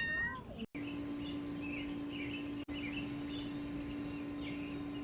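A cat's meow trails off with a falling pitch just after the start. After a brief break, small birds chirp here and there over a steady low hum.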